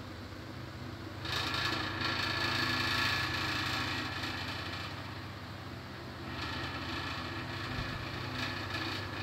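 1998 Carlton Breezy 9-inch desk fan running while oscillating: a steady motor hum under a rush of air that swells twice as the head sweeps toward and away.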